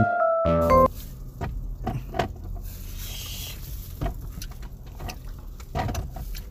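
A music jingle with mallet-like notes ends within the first second. Then come quiet scattered clicks and rustles of gloved hands and plastic food containers while eating, over a low steady hum.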